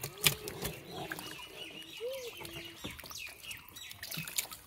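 Live catfish splashing and thrashing in shallow water in a fishing net, with scattered wet slaps. A few short pitched animal calls sound in the background, one about two seconds in and a run of higher chirps just after.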